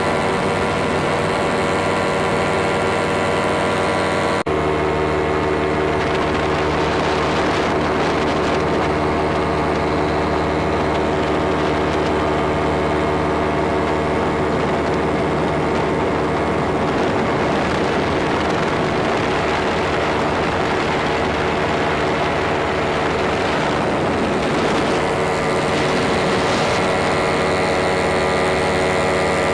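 Engine and propeller of an ultralight powered aircraft running steadily in flight, heard from on board, with a dense, even drone; the note shifts abruptly about four seconds in.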